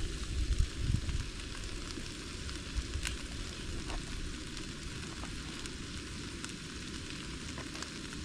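Onions frying in a pan on a portable gas camping stove: a steady sizzle with a few sharp crackles. A few low bumps sound in the first second.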